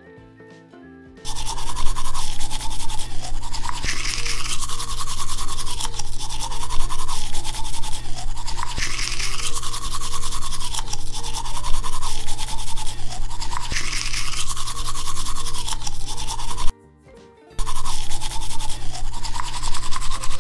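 Electric toothbrush buzzing with a steady hum, its pitch dipping and recovering about every two and a half seconds as it scrubs. It starts about a second in, cuts out for under a second near the end, and starts again.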